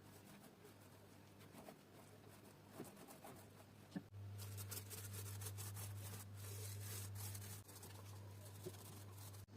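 Faint steady low hum with a light hiss and scattered soft ticks, growing louder for a few seconds in the middle before dropping back.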